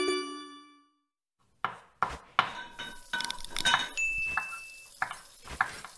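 Animated outro sound effects. A bright bell-like ding rings out and fades over about a second. Then comes a quick run of clinks and chimes like cutlery and glass being tapped, with a high held tone ringing near the end.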